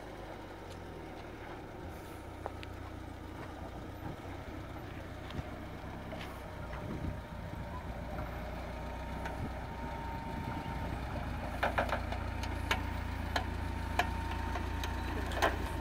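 Suzuki X-90's 1.6-litre four-cylinder engine running at low revs as the 4x4 crawls over rutted sand, a steady low hum growing louder as it approaches. A few short clicks and knocks come in the second half.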